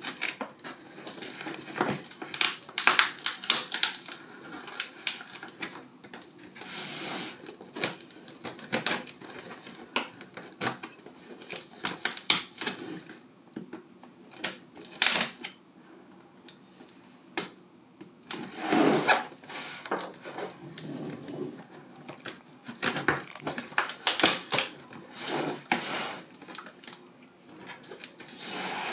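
Serrated knife slitting packing tape and cardboard on a box: a run of irregular scraping rasps and sharp clicks, with a short lull about two-thirds of the way through.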